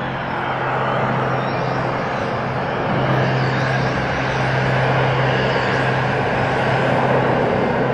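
Ambient electronic soundscape: a steady low drone under a dense rushing, wind-like noise that slowly swells.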